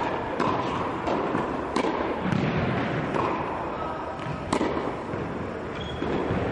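Tennis balls struck by racquets and bouncing on the court, a few sharp hits spaced a second or more apart, each echoing in a large indoor tennis hall.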